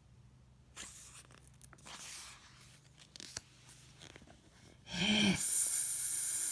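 A few soft paper rustles and small clicks, like book pages being handled. About five seconds in comes a short voiced sound, then a loud drawn-out vocal hiss imitating an angry cat.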